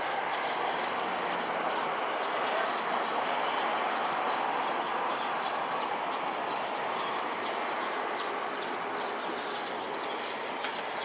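Steady, even roar of a distant airliner's jet engines on landing approach, swelling slightly a few seconds in and easing off towards the end.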